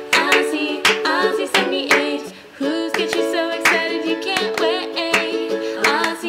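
Background music with a regular beat.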